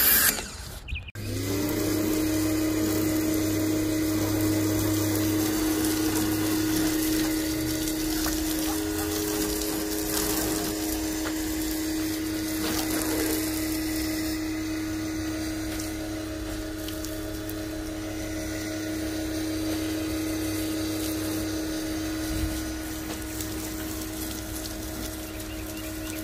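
Small pressure washer cutting out for a moment about a second in, then starting up again with a short rising whine. It settles into a steady hum with the hiss of the water jet spraying the car.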